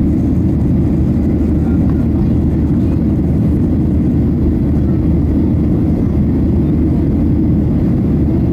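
Steady low roar of a Boeing 737-800 in flight, heard inside the cabin: its CFM56 turbofan engines and the rushing air around the fuselage.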